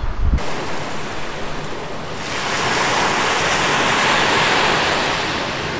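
Small waves breaking and washing up a sandy beach; one surge builds about two seconds in and slowly fades.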